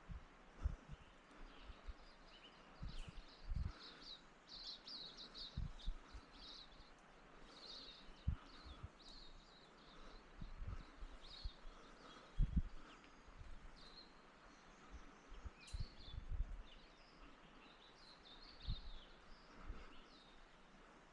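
Small birds chirping and twittering on and off, with scattered low thumps that are louder than the birdsong.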